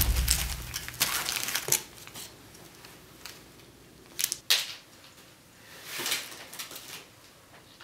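Packaging crinkling and rustling as it is handled, in several separate short bursts, with cardboard box handling among them.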